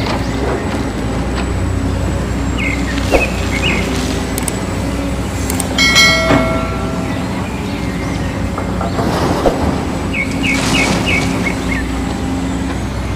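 Steady low motor hum of a radio-controlled excavator at work, with a few clicks and a short ringing tone about six seconds in. Birds chirp briefly, about three seconds in and again near the end.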